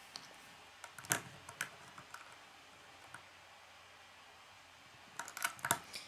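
Small plastic Lego bricks clicking and tapping as they are handled and pressed into place: a few sharp separate clicks in the first two seconds, then a quick cluster of clicks near the end.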